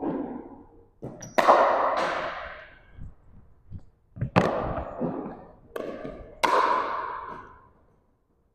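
Pickleball paddles striking a plastic pickleball and the ball bouncing on a hardwood gym floor: sharp knocks in three or four clusters, each ringing on in the hall's echo.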